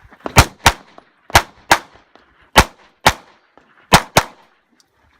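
Handgun fired in quick double taps: eight shots in four pairs, each pair about a quarter second apart, the pairs coming roughly a second apart as the shooter moves from target to target.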